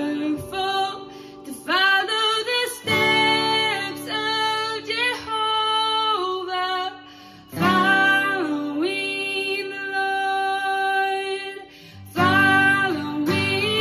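A woman singing in phrases, accompanying herself on a strummed acoustic guitar, with brief breaths between lines.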